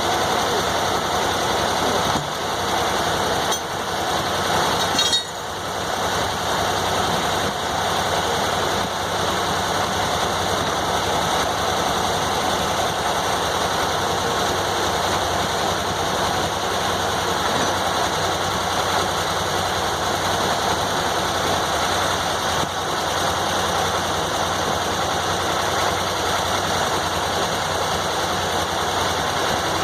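Circular sawmill's power unit running steadily, with a brief dip in level about five seconds in.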